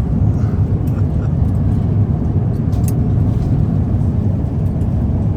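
Steady low roar of airflow and engines heard inside the cabin of an Airbus A350-900 airliner in flight, with a few faint sharp clicks.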